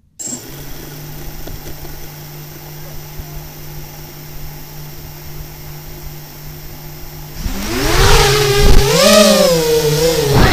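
A racing quadcopter's four brushless motors (RTFQ 2208 2300kv with HQ 6x4.5x3 three-blade props) start spinning about a quarter second in and hold a steady idle hum. About seven seconds in the throttle opens: the motor whine gets much louder and its pitch rises and swings up and down as the quad lifts off and flies.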